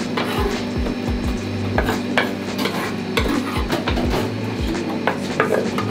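Kitchen knives chopping on plastic cutting boards in irregular knocks, mixed with a utensil stirring in a stainless steel bowl.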